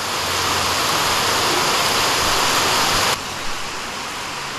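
Steady rushing noise of a storm's heavy rain and rough sea. It is louder for about the first three seconds, then drops suddenly and carries on more softly.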